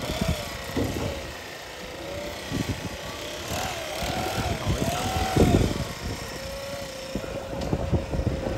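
Handheld petrol-engine blower running steadily. Its pitch rises and falls a few times in the middle as the throttle is worked, then settles back to a steady run.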